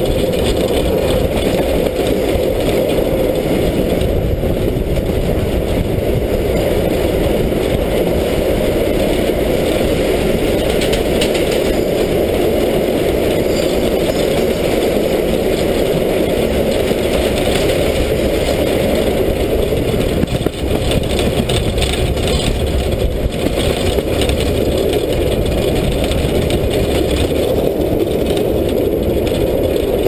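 Steam locomotive running along the track, heard close up from its side: a steady, loud running noise with no break.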